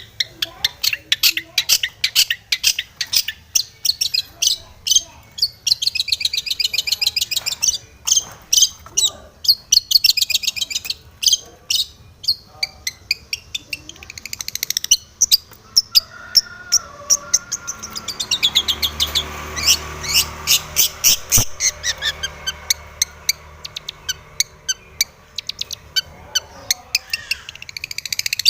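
Long-tailed shrike (cendet) singing a fast, varied song of rapid sharp chattering notes and quick trills, packed with phrases it has copied from other birds. A stretch of hiss and low hum lies under the song midway through.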